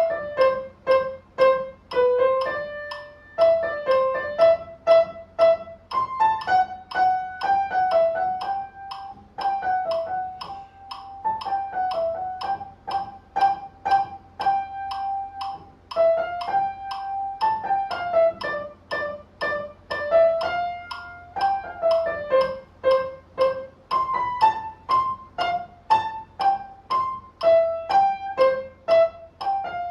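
Solo piano playing a slow, gentle melody over chords, with notes struck in a steady pulse of about two a second.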